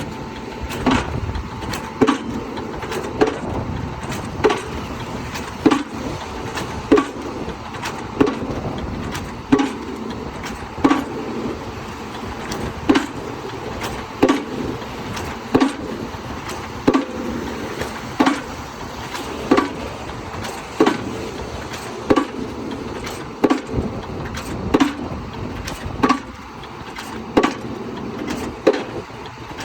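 Excavator-mounted hydraulic pile hammer driving a spun concrete pile: a sharp blow about every 1.2 seconds, evenly paced, over the steady running of the machine.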